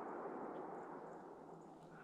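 The long rolling echo of a gunshot, dying away slowly.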